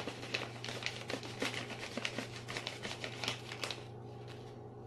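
Plastic bag of sweetened shredded coconut crinkling and rustling as a measuring cup scoops through it: a run of small crackles that dies away about three and a half seconds in.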